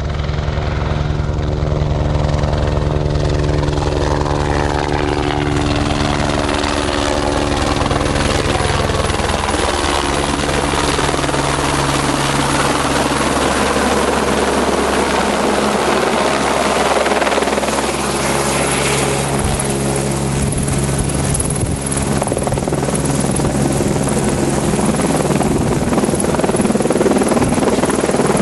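Helicopter flying close, with a steady rotor and engine hum. Its tones slide lower over the first several seconds, then a fuller rushing noise takes over.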